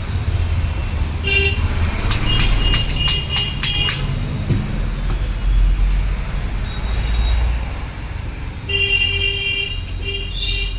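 Road traffic running steadily, with vehicle horns tooting: a short honk about a second in, several honks between about two and four seconds, and a longer spell of honking near the end.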